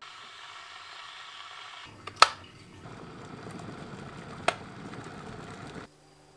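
Glass electric kettle boiling: a steady rushing rumble of water starting about two seconds in, with two sharp clicks, the louder near the start of the boil and another about two seconds later.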